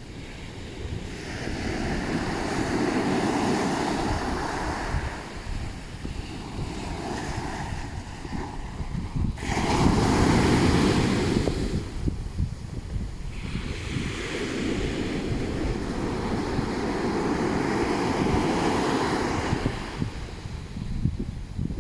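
Ocean waves breaking and washing up on a beach in several surges, the loudest crashing in suddenly about halfway through. Wind buffets the microphone underneath with a low rumble.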